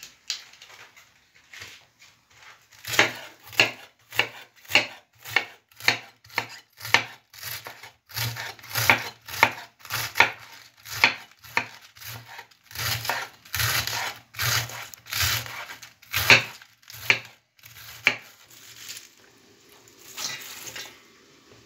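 Kitchen knife slicing a head of white cabbage on a wooden cutting board: a steady run of cuts, about two a second, each ending in a knock on the board. Near the end the shredded cabbage is pushed by hand into a metal bowl with a brief rustle.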